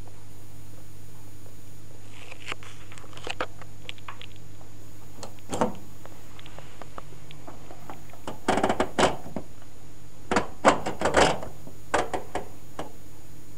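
Clicks and knocks from the programme selector dial of a Zanussi FJ1093 washing machine as it is gripped and turned by hand. They come in scattered groups, thickest and loudest in the second half, over a steady low hum.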